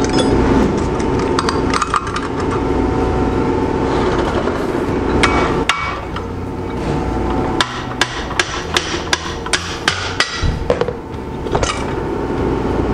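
Hammer blows on a Garrett variable-geometry turbocharger's cast-iron turbine housing to free it from the centre section: scattered sharp knocks, then a quick run of several a second about two thirds of the way through, over a steady hum.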